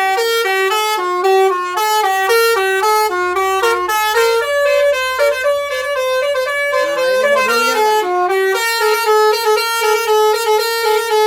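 Indonesian bus basuri horn, a multi-tone 'telolet' air horn, playing a fast melody of short stepped notes, several notes a second.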